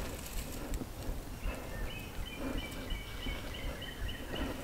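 A songbird singing a quick run of about nine clear, evenly repeated notes, over a low outdoor rumble with a few soft thumps.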